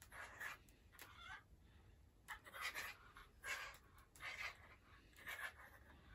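Jack Russell Terrier puppy huffing in short, faint breaths through its nose while it hangs by its teeth from a chew toy, about one huff a second, with no growl or bark.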